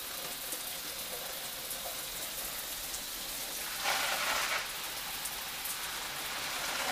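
Shower running: falling water hisses steadily and splashes onto the tiled shower floor and a mushroom growing tray. It gets louder for a moment about four seconds in.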